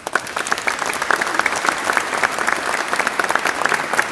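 Audience applauding: the clapping starts suddenly, builds over the first second, then holds steady.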